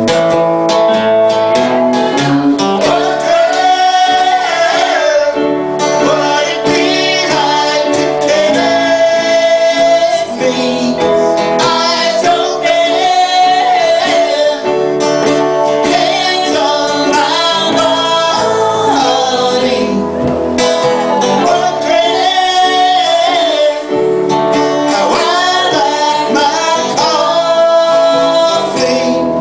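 A song: voices singing a melody over guitar accompaniment.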